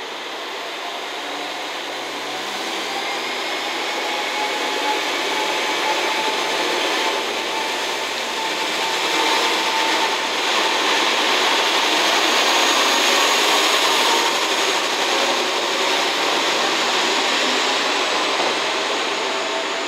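Three-car JR West KiHa 40-series diesel railcar train (KiHa 40 and KiHa 47 cars) pulling out and accelerating past, its diesel engines running under load. It grows steadily louder to a peak about two-thirds of the way through, then eases off near the end as the last car goes by.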